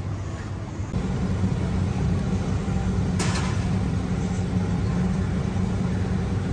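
A vehicle engine running with a steady low hum that gets louder about a second in, and a single sharp click a little after three seconds.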